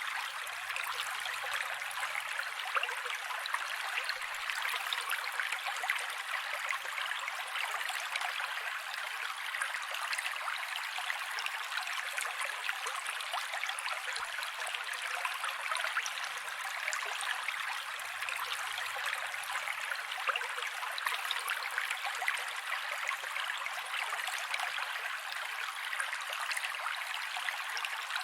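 Mountain creek water running steadily over rocks, an even rushing and trickling with no low rumble. The recording appears to loop, repeating roughly every 17 to 18 seconds.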